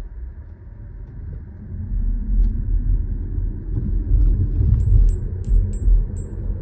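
Low road and tyre rumble inside the cabin of a Toyota Corolla Cross hybrid. It grows louder over the first couple of seconds as the car pulls away and picks up speed. Near the end come five short, high ticks in quick succession.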